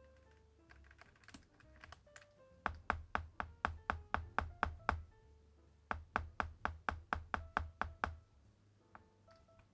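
Typing on a Weikav Record Alice V2 mechanical keyboard over background music: a few light keystrokes, then two even runs of firm keystrokes at about four or five a second.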